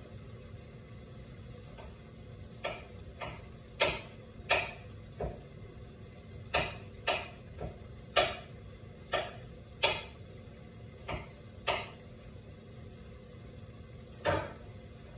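Kitchen dishes and utensils clinking and knocking: about a dozen separate hits at irregular intervals, each ringing out briefly.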